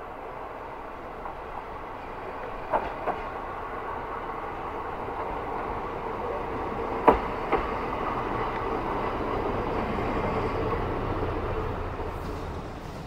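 JR Hokkaido KiHa 54 diesel railcar pulling slowly into a station, its engine running and growing louder as it comes closer. Its wheels click over rail joints in two pairs of clicks, about three and seven seconds in. The sound drops near the end.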